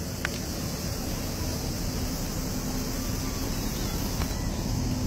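Steady outdoor background noise with a low rumble, and a sharp click just after the start.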